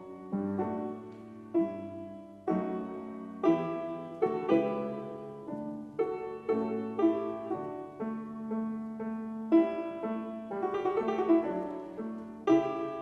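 Slow, calm instrumental music: single plucked or struck notes about once a second, each ringing out over a held low tone.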